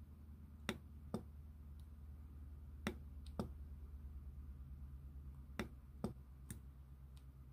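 Small tactile push buttons on a hand-built STM32 oscilloscope board clicking as they are pressed, seven sharp clicks mostly in pairs about half a second apart, over a faint steady low hum.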